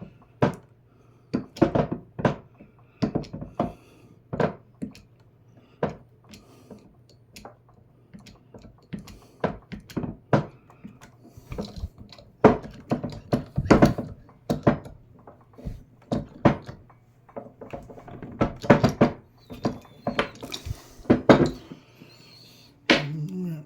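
GudeKeen hand-held hydraulic crimper being worked to crimp a wire ferrule: irregular metallic clicks and knocks from the pump handles and the tool being handled, dozens of them, in clusters.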